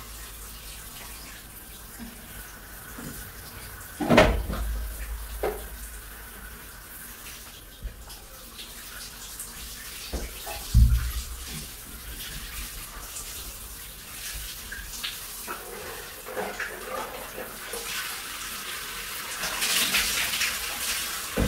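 Water running and splashing in a shower stall while the glass screen is being cleaned, with two dull thumps about four and eleven seconds in. The water gets louder near the end.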